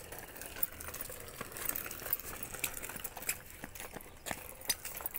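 Footsteps on a gritty paved road: irregular light taps and scuffs, several a second.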